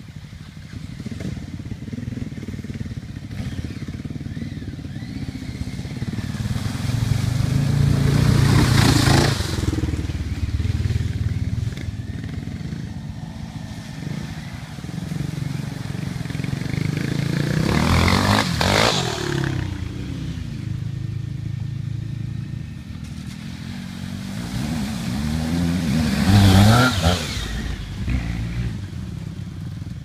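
Dual-sport motorcycles ridden one at a time through a deep creek, three passing close in turn. Each engine grows louder as the bike splashes through the water and then fades, its pitch falling as it goes by, over a steady idling and running of the other bikes waiting.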